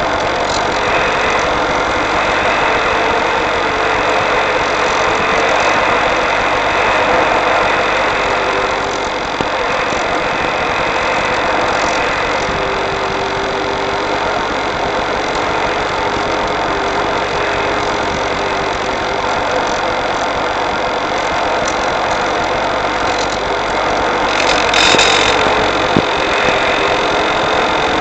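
In-flight sound of an RC electric glider picked up by its onboard FPV camera: a steady rushing noise with a faint wavering hum, swelling briefly near the end.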